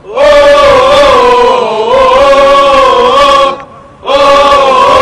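Loud chant-like singing of a Libyan revolution song. One long sung phrase lasts about three and a half seconds, there is a brief break, and the next phrase starts about four seconds in.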